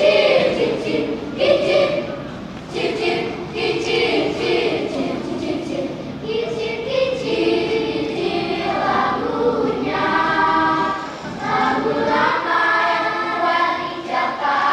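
Elementary school children's choir singing together; about eight seconds in, the voices climb to a higher part of the melody.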